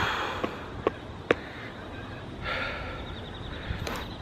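A cyclist breathing hard after a maximal effort, two heavy breaths with a couple of sharp clicks between them.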